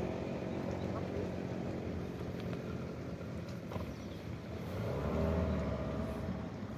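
Small outboard motor on an inflatable boat idling with a steady hum, briefly louder about five seconds in.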